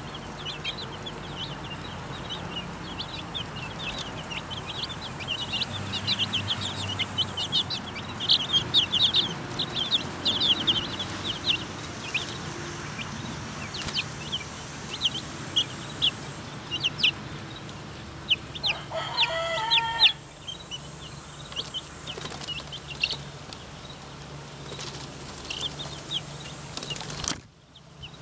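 A flock of young chicks peeping: many short, high cheeps in quick succession, with wing flutters as chicks hop and flap down from the coop. About two-thirds of the way in, one longer, lower call stands out.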